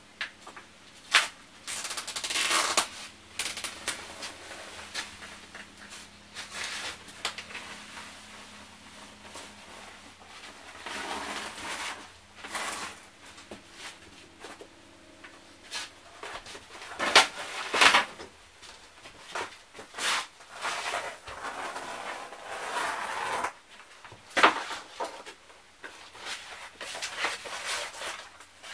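Old linoleum flooring being pulled up and handled by hand: irregular scraping, crackling and tearing of the stiff sheet, with a few sharp knocks, the loudest a little after a quarter of the way in and again past halfway.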